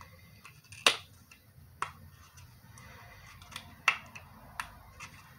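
Scattered sharp clicks and light handling noise as fingers pick open a small cosmetics package, about five clicks at irregular intervals.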